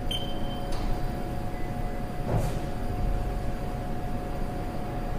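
Haas CNC mill running its power-up zero return, the axes homing under servo power: a steady machine hum and rumble, with a short high beep right at the start and a couple of light knocks.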